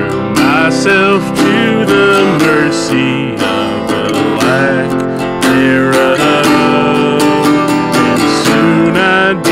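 Acoustic guitar strummed in a steady rhythm while a harmonica plays a bending melody over the chords.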